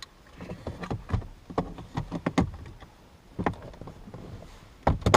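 Plastic clicks and knocks from handling the car door's power window switch panel and trim as they are fitted back into place, with two sharper snaps near the end.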